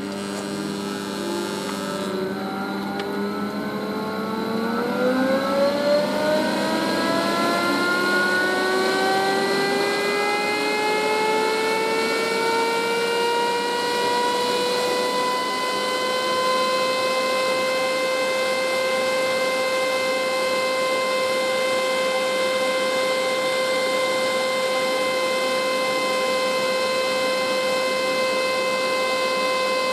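A 12 V, 4 A turbo blower exhaust fan spinning up: its whine rises in pitch over about twelve seconds, sounding like an air-raid siren, then holds steady at a high pitch.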